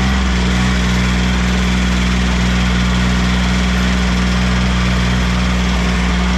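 Cub Cadet 1512 garden tractor's engine running steadily as the tractor drives along, its pitch even throughout.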